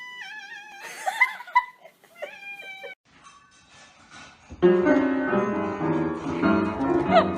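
A cat meows twice, a long drawn-out meow and then a shorter one, with a couple of sharp clicks between them. A little over halfway through, louder piano music starts and keeps going.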